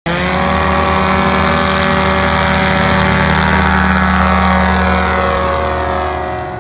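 A light high-wing STOL taildragger's propeller engine runs at full takeoff power through a short ground roll and liftoff, loud and close. Near the end the pitch drops slightly and the sound fades as the plane climbs away.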